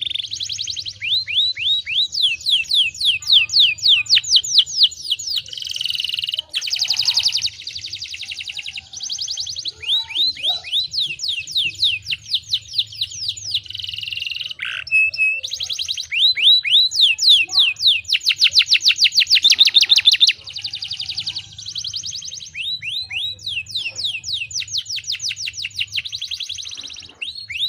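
Domestic canary singing: long, high-pitched trills of rapidly repeated falling notes. The phrases change speed from one to the next, with only brief breaks between them, over a faint low hum.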